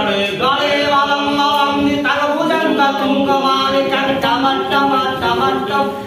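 Unaccompanied voices singing a devotional hymn in long, sustained melodic lines, with no instruments.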